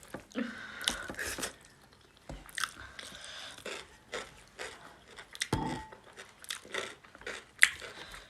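Close-up eating sounds of a mouthful of pork and rice: irregular chewing and biting, with short crunchy, clicking mouth noises.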